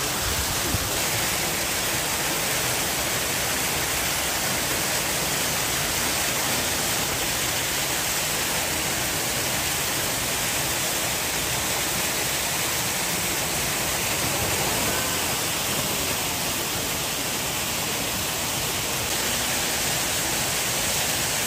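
Steady rush of running water in a polar bear pool, an even hiss that does not change.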